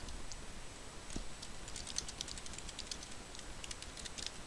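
Computer keyboard typing: irregular, quiet key clicks as a command is typed.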